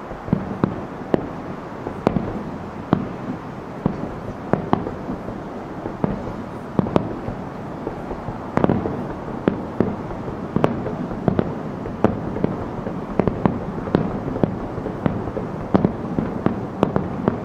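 Aerial firework shells bursting in a rapid, continuous barrage, heard from about 2.5 km away: a dense, irregular run of sharp bangs, several a second, over a steady rumble.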